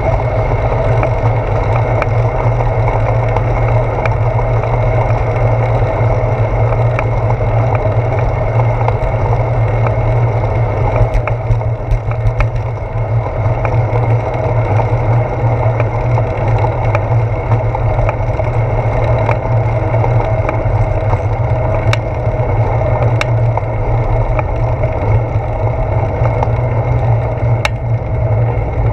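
Steady low rumble of wind and road vibration picked up by a handlebar-mounted GoPro Hero 4 on a moving bicycle, with scattered sharp clicks and rattles from bumps in the road.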